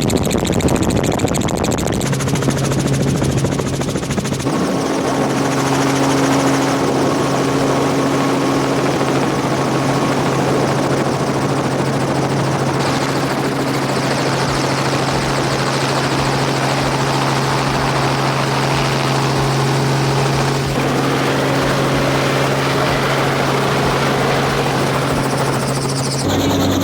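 Helicopter running in flight: a steady, loud engine and rotor drone with a constant low hum. It changes abruptly a few times where clips are cut together.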